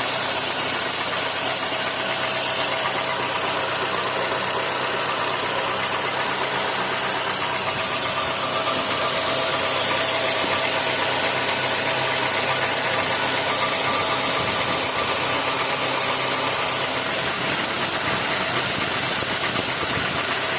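Honda Civic sedan's engine idling steadily with a mechanical knocking, the fault being recorded.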